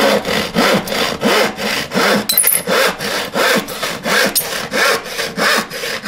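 Hand saw cutting through damp treated-timber gravel board in steady back-and-forth strokes, about three a second.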